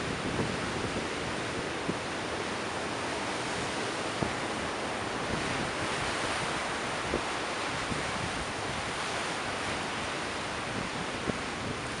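Rough ocean surf rolling and breaking, a steady wash of white water that swells a little around the middle. Wind buffets the microphone in a few short low thumps.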